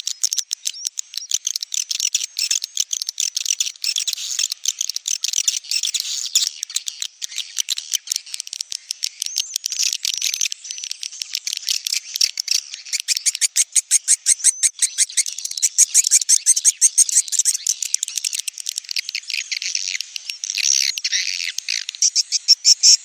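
Recorded swiftlet calls of the kind played to draw birds into a swiftlet house: a dense, unbroken stream of rapid high-pitched chirps and twittering clicks, with nothing low in pitch.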